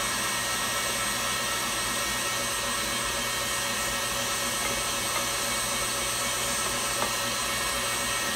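KitchenAid stand mixer running steadily, its motor whining as the beater turns through a thick butter-and-sugar batter in a glass bowl. A couple of small clicks come near the middle and near the end.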